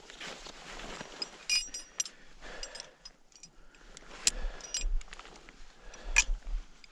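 Scattered metal clinks and knocks of mountaineering gear being handled, a few with a short ringing jingle about a second and a half in and sharper knocks near the end.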